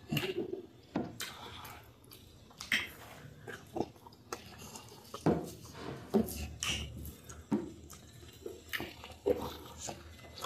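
Close-up eating sounds: bare fingers working sticky oats fufu and dipping it into slimy okra soup, with chewing and swallowing, heard as a string of short, irregular wet clicks.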